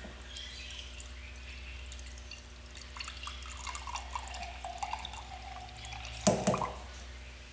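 Beer running from a plastic spigot on a fermenter into a glass mason jar, trickling and dripping as the jar fills. A single sharp knock about six seconds in as the spigot handle is turned shut.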